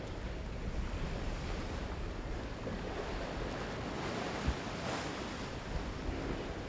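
Rush and splash of waves and wake around a schooner under sail, with wind buffeting the microphone. A single short knock about four and a half seconds in.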